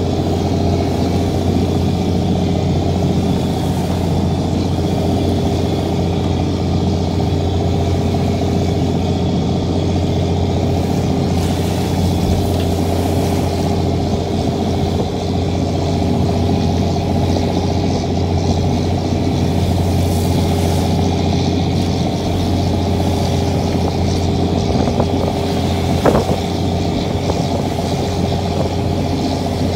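A lobster boat's engine running steadily under way, a loud low drone with the rush of rough water along the hull. One short knock near the end.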